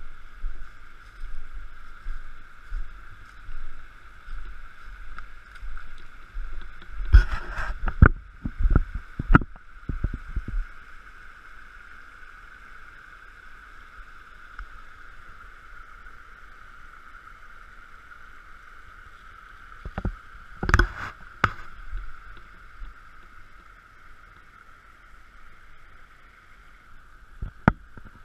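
A shallow rocky stream babbling steadily over stones. Low rumbles come through in the first ten seconds, and a few sharp knocks sound about seven to ten seconds in, again around twenty-one seconds, and near the end.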